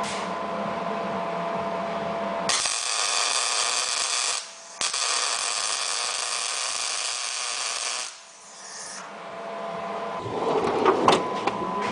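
Electric arc welding on a cast manifold, in two short bursts with a brief pause between: quarter-inch stitch welds laid with little heat, so the cast iron does not crack.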